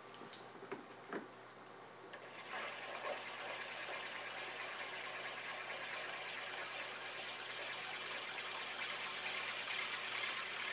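Wet hands and a rib rubbing on a clay tumbler as it spins on a pottery wheel: a steady wet hiss that starts about two seconds in and stops suddenly at the end, after two light knocks.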